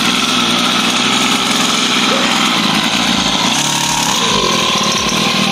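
Small 49cc two-stroke mini dirt bike engine running steadily as the bike pulls away and rides along.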